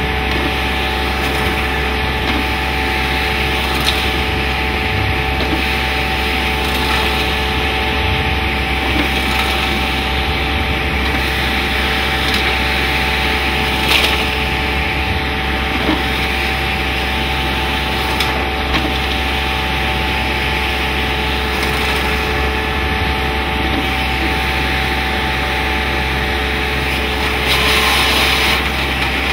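Bucher Schoerling CityFant 6000 vacuum sweeper's hand-held suction hose drawing a loud, steady rush of air over a steady fan hum, with a few sharp knocks and clatters as debris is sucked into the hose.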